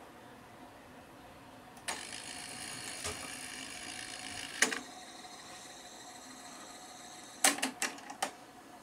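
Technics RS-M51 cassette deck transport. A key clunks down and the tape whirs as it fast-winds for about three seconds, then stops with a sharp clunk. A faint steady hum follows, then a quick run of four or five key clunks near the end as play is pressed.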